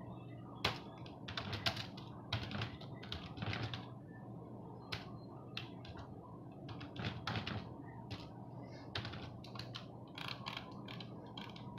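Computer keyboard being typed on: runs of quick key clicks with pauses of a second or two between them, over a steady low hum.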